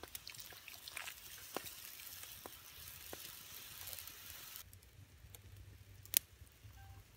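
Broth boiling hard in an iron wok over a wood fire, a close crackling, bubbling hiss that cuts off abruptly about four and a half seconds in. After that the fire under the wok is quieter, with one sharp crack about six seconds in.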